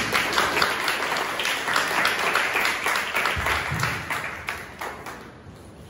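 Audience and guests clapping, the applause fading away over about five seconds.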